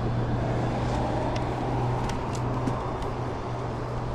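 A boat motor running steadily, a low even hum over a wash of noise.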